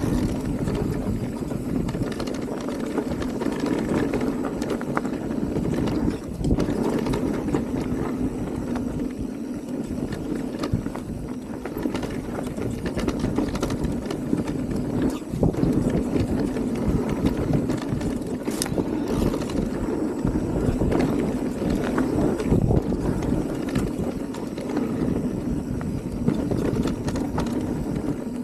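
Radon DEFT 10 electric mountain bike ridden down a rough trail: steady tyre rumble over dirt and roots with many rattles and knocks from the bike.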